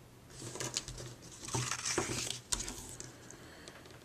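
Double-sided score tape being run along a cardstock strip, with the cardstock handled: papery rustling and crackling with a few sharp clicks.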